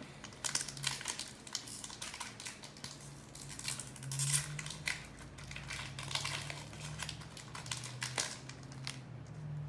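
Foil booster-pack wrapper of a Pokémon trading card pack crinkling and crackling in the hands as it is opened, in a dense run of irregular crackles.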